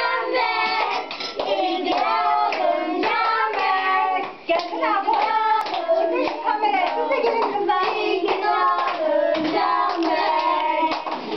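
A group of children singing a birthday song together, with hands clapping along.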